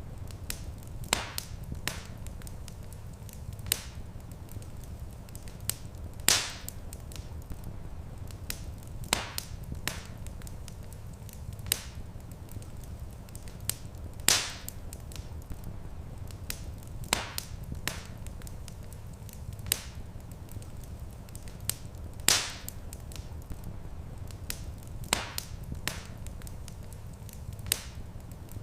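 Wood fire crackling in a stone fireplace: irregular sharp snaps and pops, a few much louder than the rest, over a steady low rumble.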